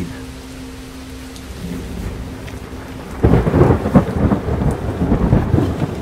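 Thunderstorm with heavy rain: a steady low hum at first, then about three seconds in a sudden loud, irregular surge of rain and thunder noise.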